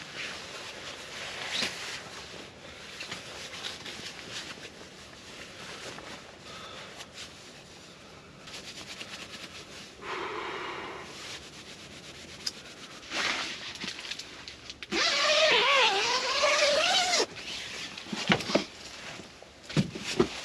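Scattered rustling and light knocks, then about fifteen seconds in a loud, wavering, pitched call lasting about two seconds.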